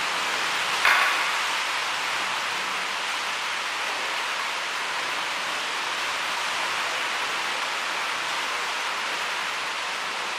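Steady hiss throughout, with one sharp clack about a second in from wooden practice swords (bokken) striking each other.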